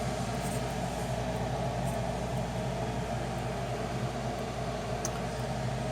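Steady electrical hum with an even fan-like rush.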